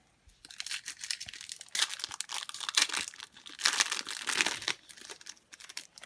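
A trading-card pack's plastic wrapper being torn open and crinkled by hand, a dense crackling of rustles and rips that dies away near the end.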